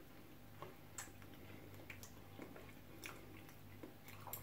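Metal forks clicking faintly and irregularly against plates while eating, over a low steady hum.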